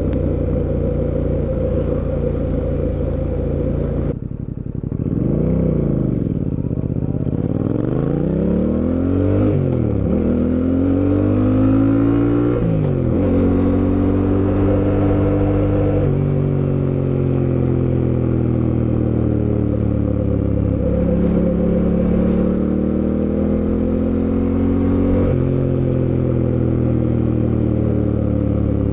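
2024 Fantic Caballero 700 Scrambler's parallel-twin engine under way. About four seconds in the throttle closes and the revs drop. It then accelerates, the pitch climbing with two upshifts, and settles into a steady cruise with small rises and falls in engine speed.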